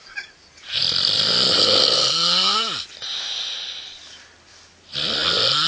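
Loud snoring: a long noisy in-breath that ends in a rising, whistle-like tone, a quieter breath out, then a second loud snore beginning near the end.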